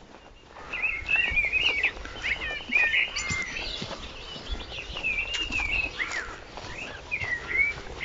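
A songbird of the thrush family sings loud warbled phrases one after another, with a brief higher twitter among them. Faint low rumble underneath.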